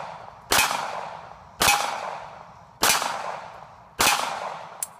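Cobra FS380 .380 pistol firing brass-cased SIG ammunition, four shots about a second apart, each fading out over the next second, with the tail of a previous shot at the start. A short, sharp click comes just before the end.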